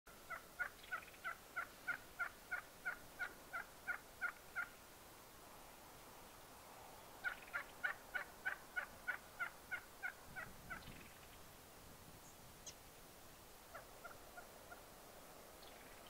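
Turkey calling: two long runs of evenly spaced clear notes, about three a second, each run lasting around four seconds, with a few fainter notes near the end.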